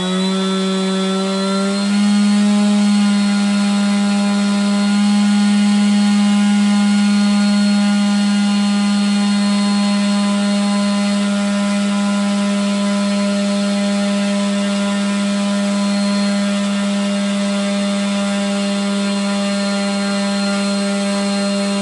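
RC airplane's electric motor running at a steady speed under throttle, a loud even whine drawing about 5 amps through the redundancy power circuit under load test. It steps up slightly in speed about two seconds in, then holds.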